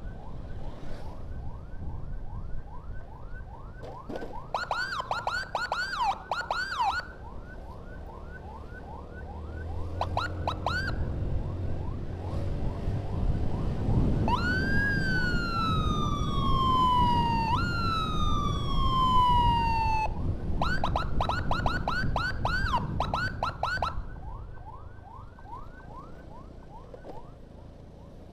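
Ambulance siren running in a rapid yelp, about three sweeps a second, switching around halfway to two long falling wails, then back to the rapid yelp, which fades near the end. A low vehicle rumble runs underneath.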